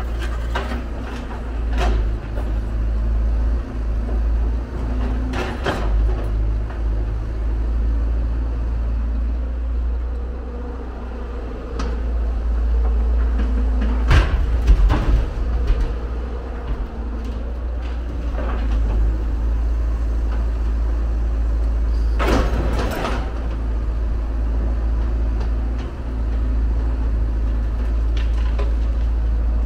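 Hyundai R170W wheel excavator's diesel engine running steadily while the machine digs and loads, with scattered knocks and clatters of the bucket working rocky soil. About halfway through comes a loud clatter of rock being dumped into the dump truck's bed, and there is another burst of scraping and knocking a little later.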